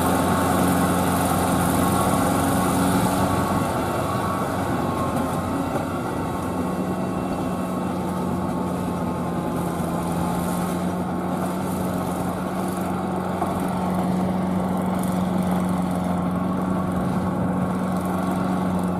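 Kubota L4508VN tractor's four-cylinder diesel engine running steadily with a constant low hum while it pulls a rotary tiller through flooded paddy mud.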